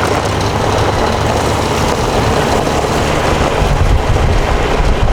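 Gator utility vehicle's engine running steadily while driving, with noise from the ride over the ground.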